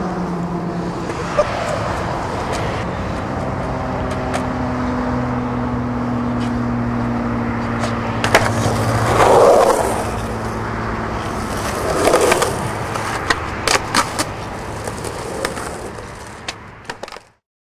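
Skateboard wheels rolling on a concrete drainage ditch, with a kickflip about eight seconds in: sharp clacks of the board popping and landing, then more clacks of the deck and wheels later on. The sound fades out just before the end.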